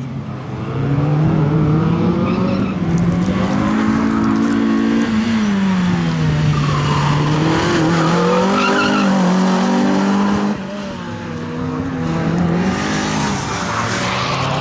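Renault Clio rally car driven hard, its engine revving up and falling back several times through the turns, with tyres squealing in the corners.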